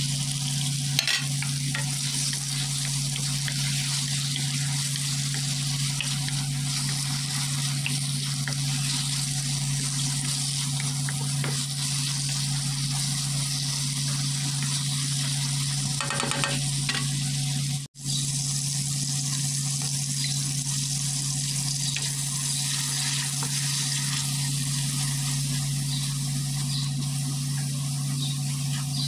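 Onion and tomato sizzling steadily in hot oil in a wok while being stirred, with a few light scrapes of the utensil. A steady low hum runs underneath, and the sound drops out for an instant about two-thirds through.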